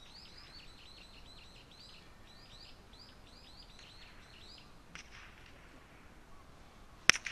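A small bird chirping in a quick repeated series, about three calls a second, for the first four to five seconds. A faint click comes about five seconds in, and near the end a park golf club strikes the ball with a single sharp crack, the loudest sound.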